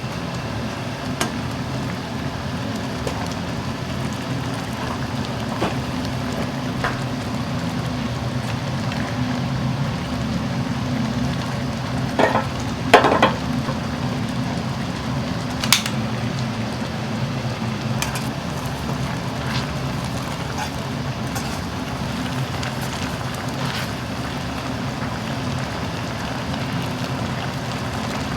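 Street-food stall kitchen sounds: a steady low hum under a faint sizzle of frying, with scattered clinks and knocks of utensils and pans, a short cluster of knocks about halfway through.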